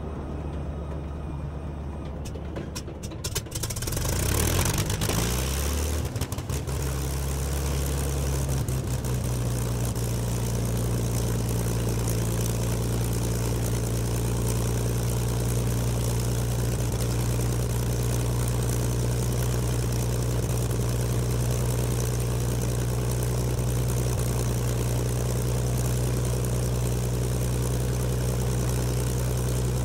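A heavy engine starts: a few clicks about three seconds in, a brief rise in pitch as it catches, then it settles into a steady idle for the rest.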